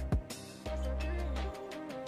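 Background music with a drum hit near the start and a sustained low bass note under a melody.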